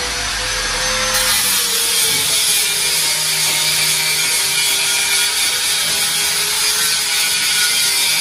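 A power tool cutting steadily on a building site: a loud, even, hissing run of noise with no break.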